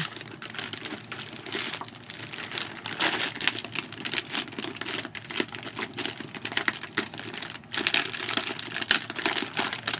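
Plastic bag around a new oscilloscope crinkling and rustling in irregular bursts as it is handled and unwrapped.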